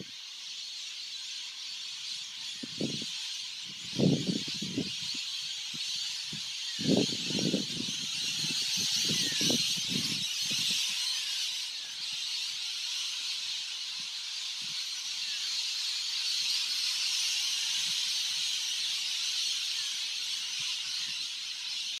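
A large flock of parrots screeching together overhead, a dense, continuous high-pitched din of many overlapping calls. A few low muffled thumps sound in the first half.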